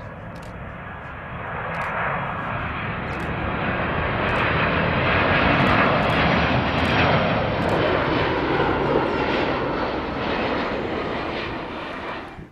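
Boeing 767-200ER airliner's jet engines on landing approach, passing close overhead: the noise builds, is loudest about five to seven seconds in, then eases off, and cuts off abruptly at the end.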